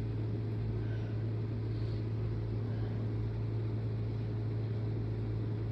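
Steady low background hum, unchanging throughout, with no sneeze or other event in it.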